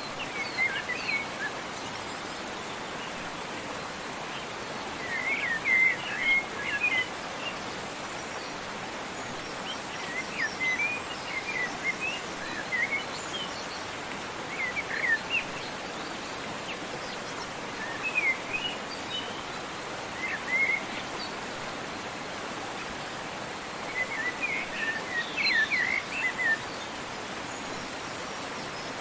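Small birds chirping in short bursts of quick, high notes every few seconds over the steady rush of a waterfall.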